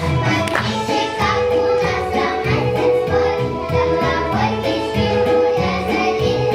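A children's folk vocal ensemble singing together over an instrumental accompaniment with a steady, repeating bass line.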